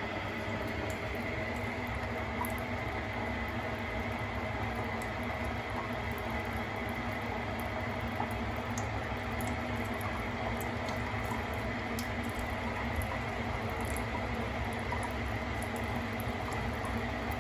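Steady hum of a bus engine, with a few faint ticks over it.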